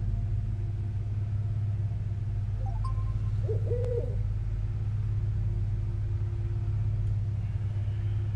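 A steady low drone from a horror film's soundtrack, with a brief, slightly wavering tone about three and a half seconds in as a sleep-sounds app opens on a phone.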